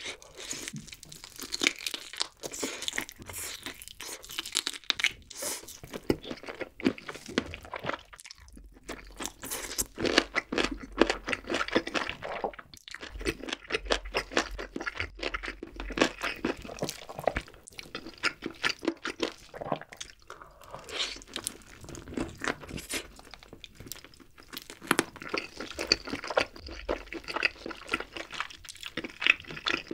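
Close-miked eating sounds: biting and chewing a glazed grilled chicken drumstick, a dense run of crunchy, wet chews with two short pauses.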